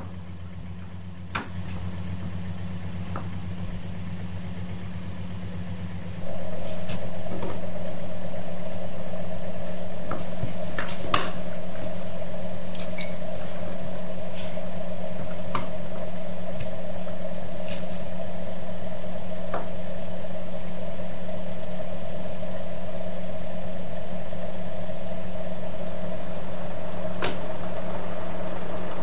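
A steady, low engine-like drone, as of an engine idling. About six seconds in it gets louder and a higher drone joins it, then both hold steady, with a few sharp clicks scattered through.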